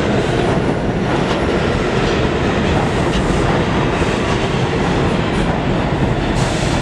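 Subway train pulling into an underground station: a steady loud rumble and rattle of steel wheels on the rails as the cars roll past, slowing to a stop.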